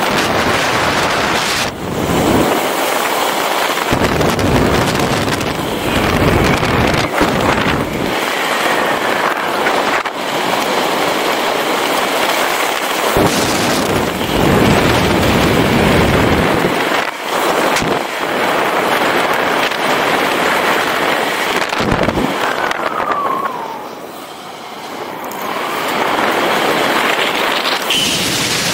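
Wind rushing over a helmet camera's microphone in flight under an open parachute canopy, buffeting in irregular gusts, easing briefly a few seconds before the end.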